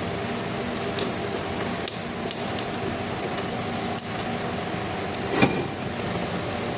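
Small clicks and taps as a new connector is pushed onto the electric kettle element's terminal, with one sharper click about five and a half seconds in, over a steady background hum.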